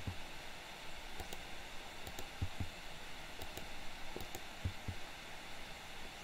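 Computer keyboard key presses and mouse button clicks: short sharp clicks, mostly in pairs about four times, with a few soft low knocks, over a steady background hiss.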